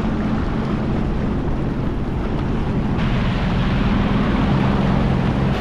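Sea-Doo GTX 230 personal watercraft running steadily under way: an even engine hum under wind buffeting the microphone and the rush of water.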